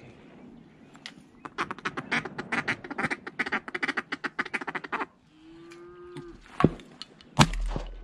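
Several seconds of rapid, chattering duck quacking, then one drawn-out call note. Near the end come two loud shotgun shots under a second apart.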